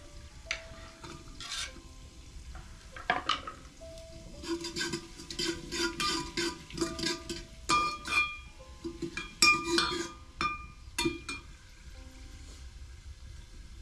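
A metal spoon stirring food in a steel cooking pot, in a run of quick clinks and scrapes against the pot with short metallic ringing, from about four seconds in until about eleven seconds in. Soft background music underneath.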